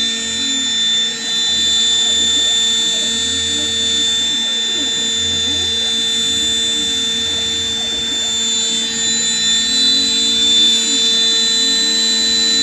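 CNC router spindle running steadily with a high whine while its end mill cuts plywood. Underneath, the axis motors' tone rises and falls over and over as the cutter follows the curves of a lobed shape.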